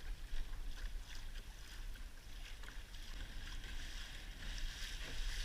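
Water swishing and lapping against a kayak hull, with a steady low rumble of wind buffeting the microphone.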